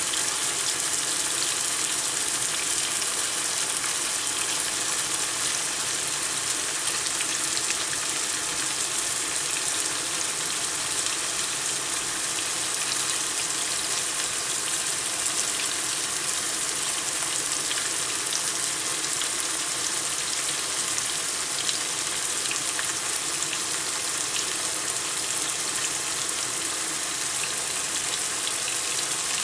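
Rabbit meat with onions braising in a pan, its juices and fat sizzling steadily with small scattered pops, about halfway through the braise.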